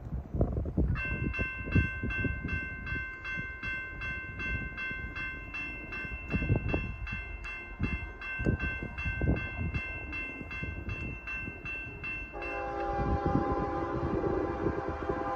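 Railroad crossing warning bell ringing steadily about twice a second while the gate arms come down, falling silent about 12 seconds in. A Norfolk Southern freight locomotive's air horn then starts and sounds continuously. Wind buffets the microphone throughout.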